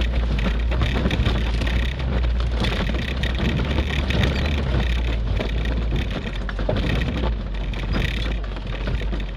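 Inside the cab of a 1992 Suzuki Sierra crawling over rough offroad ground: a steady low engine rumble under constant rattling and small knocks from the body and cabin.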